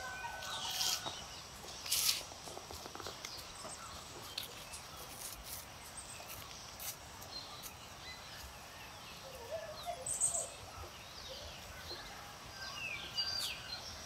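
Faint rural outdoor ambience with scattered short bird chirps and calls; a few chirps stand out about ten seconds in.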